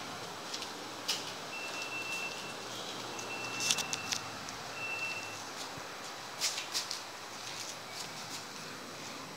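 Rustling and clicking from the phone being handled, over a steady hiss, with three faint high steady beeps of differing length in the first half.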